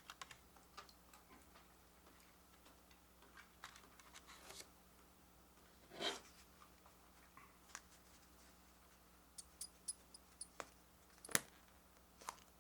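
Faint, scattered clicks and light taps of small objects being handled, with a louder brief scrape about six seconds in and a quick run of sharp clicks near the end.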